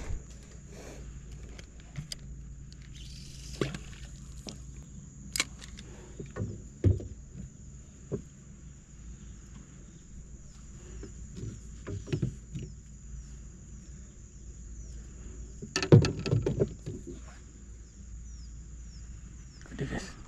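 Small boat with fishing gear aboard: scattered knocks and taps of rods and gear against the hull, with a louder cluster of knocks about 16 seconds in, over a steady high-pitched whine and a low hum.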